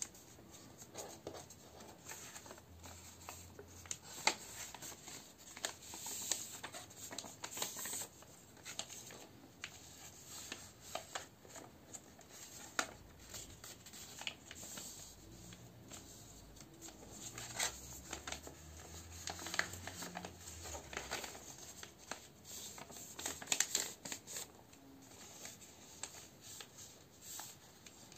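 A sheet of A4 paper being folded into a paper airplane by hand: rustling, with short sharp scrapes and taps at irregular moments as fingers press and run along the creases.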